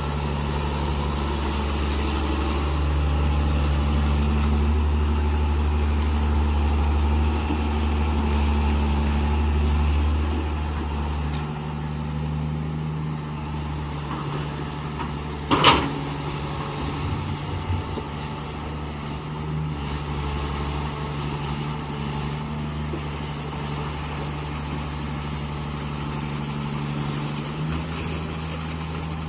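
Tata Hitachi hydraulic excavator's diesel engine running steadily, louder for the first ten seconds or so and then easing off. About halfway through there is a single sharp clank, followed by a few smaller knocks.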